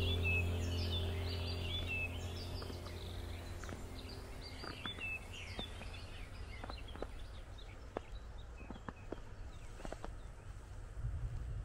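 Small birds chirping and calling, busiest in the first half, while background music fades out in the first few seconds. Scattered faint clicks follow in the second half.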